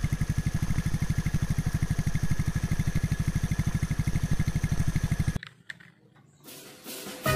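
A military rocket-launcher truck's engine running with a rapid, even throb. It cuts off abruptly about five seconds in. Near the end comes a faint rustle of plastic packaging being handled.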